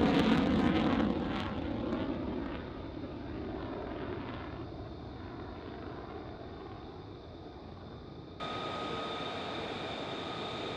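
F-35A's single F135 turbofan jet engine running in afterburner as the fighter climbs away, its roar fading steadily into the distance. About eight seconds in it cuts to another F-35A on the runway, its engine a steady high-pitched jet whine.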